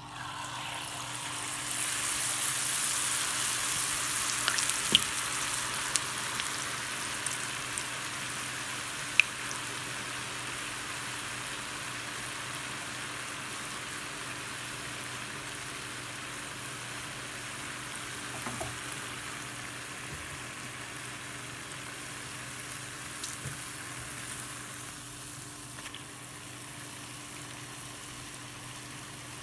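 Jalebi batter deep-frying in hot oil over high heat in a cast-iron skillet. The sizzle starts as the batter hits the oil, is loudest in the first few seconds, and then eases off slowly, with a few sharp pops.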